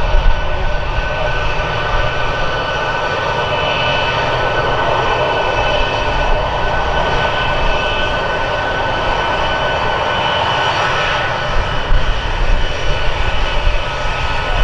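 Boeing C-17A Globemaster III's four Pratt & Whitney F117 turbofans running at taxi power as the aircraft taxis: a steady, loud jet whine with a few held high tones over a low rumble.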